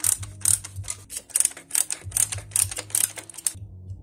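Ratcheting screwdriver clicking in quick, irregular runs as it backs out the Torx T25 screws holding the PCV valve. The clicking stops about three and a half seconds in.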